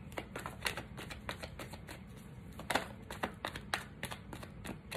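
A tarot deck being shuffled by hand, the cards clicking against each other in a quick, irregular run of light clicks, several a second.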